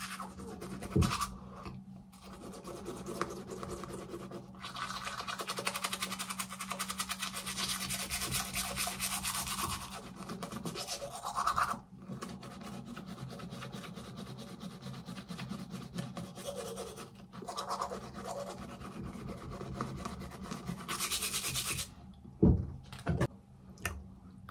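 Close-up scrubbing of a manual toothbrush on teeth, quick back-and-forth strokes through the paste, with a brief pause about twelve seconds in. The brushing stops shortly before the end and is followed by a few sharp knocks.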